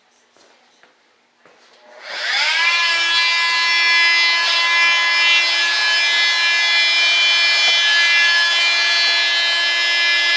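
An electric power tool motor spins up about two seconds in and runs at a steady, high whine.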